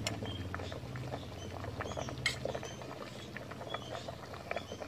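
Pot of jackfruit curry simmering: soft, irregular bubbling and crackling at the surface, with a single light clink about halfway through.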